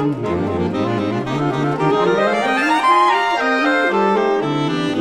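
Saxophone quartet of soprano, alto, tenor and baritone saxophones playing with harp, in sustained, moving chamber-music lines. One part climbs step by step to a high note about three seconds in, then the parts step back down.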